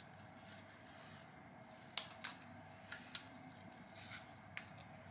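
Raw salmon steaks being handled and turned over on a small metal tray: a few faint clicks and taps, the clearest about two seconds in, over quiet room tone.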